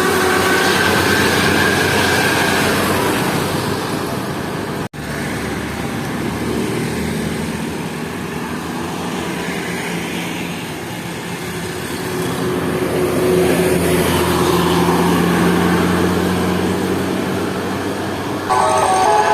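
Heavy bus engines working up a hill amid steady road traffic, the engine noise swelling again partway through, with a brief break in the sound about five seconds in. Near the end a multi-tone telolet horn bursts in, playing a tune.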